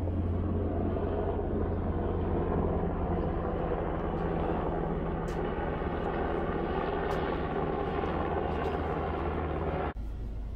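Steady engine drone with a low hum, which cuts off abruptly near the end and gives way to a quieter low rumble.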